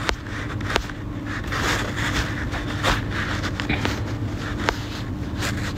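Steady low hum with faint rustling and a few small clicks.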